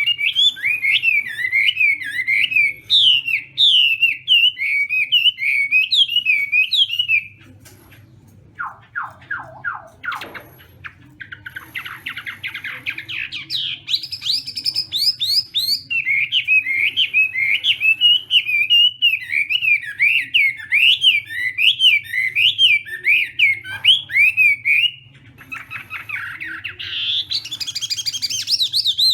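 Chinese hwamei (melodious laughingthrush) singing a loud, fast, continuous song of rising and falling whistled notes, with two short breaks where the song shifts into higher, quicker phrases.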